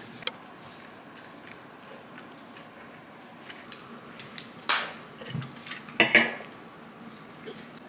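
Light clicks of chopsticks and tableware, then drinking from an aluminium can of soda (Korean 'cider'), with a loud sip a little before five seconds and a quick cluster of gulps or can clinks around six seconds.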